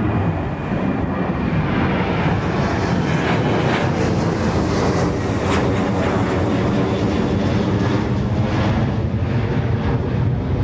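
Airliner passing low overhead, its engines running with a steady, loud noise and a layered whine.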